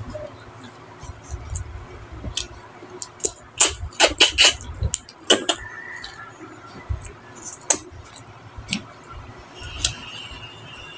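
Close-miked eating sounds: wet chewing and lip-smacking clicks, scattered at first and then packed into a loud run of smacks about four to five and a half seconds in, with single clicks after.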